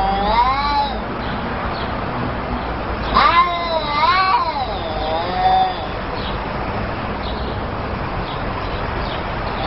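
Two cats in a face-off yowling at each other in long, wavering calls that rise and fall in pitch: one yowl trails off about a second in, another runs from about three seconds in for nearly three seconds. The yowling is a threat between the two cats squaring up.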